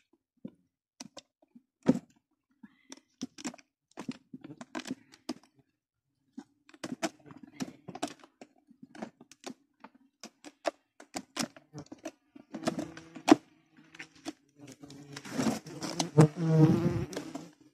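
Knife blade cutting and prying into the crumbly nest of a moroja stingless bee colony: irregular crackles and scrapes, with a louder, longer rasping in the last couple of seconds.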